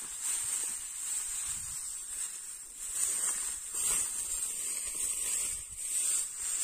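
Dry cut rice straw rustling and crackling as it is gathered by hand into a bundle, over a steady high-pitched hiss.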